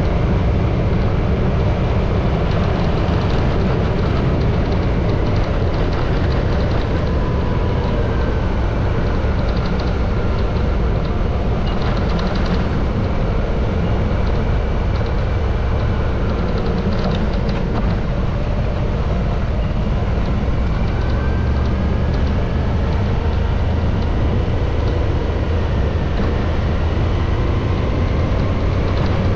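Motorcycle on the move: a steady loud low rumble, with the engine note faintly rising and falling as the bike changes speed through bends.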